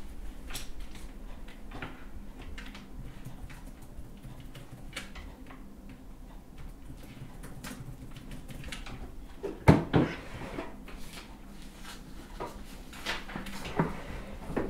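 Scattered small clicks and knocks of objects being handled, over a low steady hum. A louder knock comes about ten seconds in, and two more near the end.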